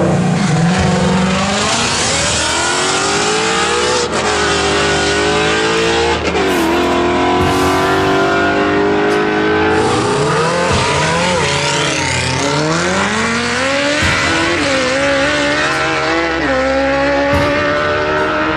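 Drag-racing engines revving and accelerating hard, the pitch climbing and then dropping back again and again as they shift up through the gears.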